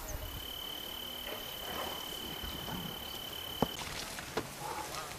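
An insect's steady, high trill holds one pitch for about three and a half seconds, then stops abruptly just after a single sharp click.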